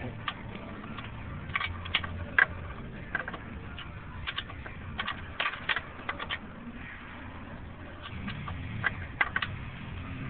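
Irregular metallic clicks and scrapes, some in quick clusters, as a broken ignition key used as a makeshift screwdriver turns a license plate screw, over a low steady hum.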